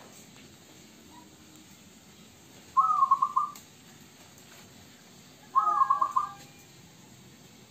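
Zebra dove (perkutut) singing: two short staccato cooing phrases about three seconds apart.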